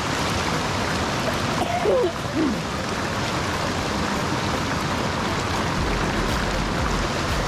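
Steady rushing of a shallow mountain creek and its stepped waterfall cascade.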